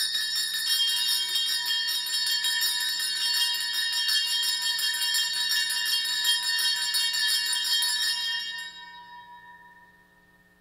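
Altar bells (a cluster of small Sanctus bells) shaken continuously for about eight and a half seconds, then left to ring out and fade. They mark the elevation of the chalice at the consecration.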